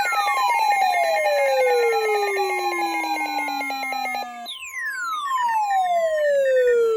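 Electronic alert tones: a whistling tone falls steadily from high to low over about four seconds. It starts again high about 4.5 seconds in and falls once more. Under the first fall a fast-pulsing, ringer-like two-tone trill sounds and then cuts off.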